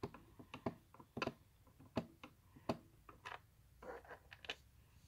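A screwdriver turning small screws in a plastic toy's back panel: faint, irregular clicks and ticks, about a dozen of them.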